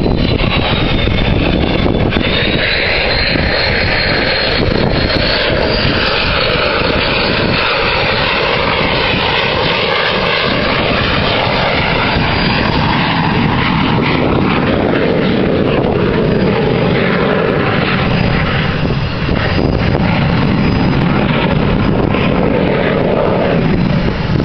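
EA-18G Growler's twin jet engines on landing approach: a loud, steady jet roar with a thin high whine over it that dips and then rises about two seconds in.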